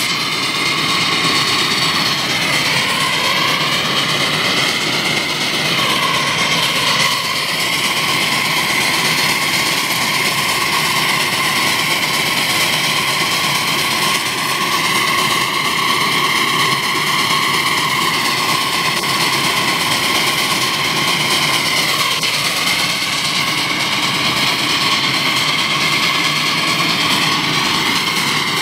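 Live-steam scale Climax geared locomotive running under load, a loud steady hiss and rush of steam with faint whistling tones that waver in pitch now and then.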